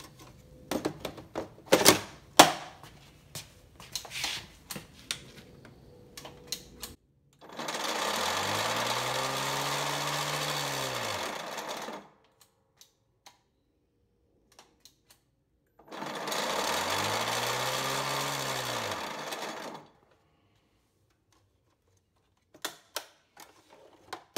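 Greenworks 25-inch 60 V twin-blade battery mower started twice: the electric motor and blades spin up through the filed-down plastic timing gears, run noisily for about four seconds and wind down, showing the blades turn freely again after the gears stripped. Clicking of the battery pack being latched in comes before the runs, and a few more clicks near the end.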